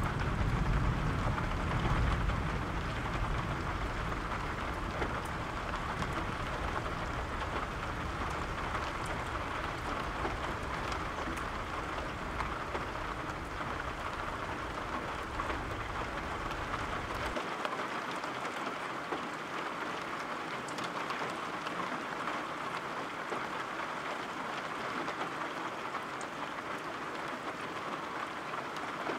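Steady rain falling, with a low rumble of rolling thunder underneath that stops abruptly a little past halfway, leaving only the rain.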